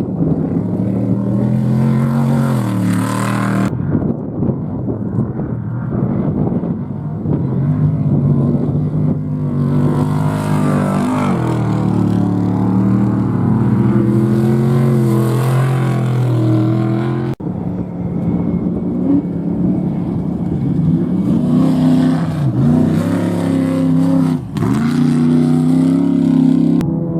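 Off-road race vehicle engines revving hard and passing, their pitch rising and falling with the throttle. The sound cuts abruptly twice, about 4 seconds in and again past the middle.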